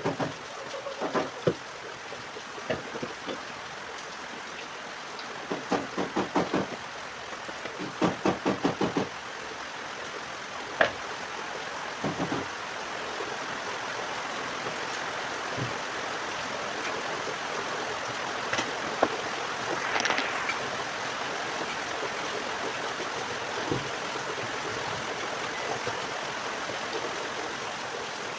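Steady rushing of heavy rain that grows louder partway through, with scattered knocks and two short rapid runs of tapping in the first half.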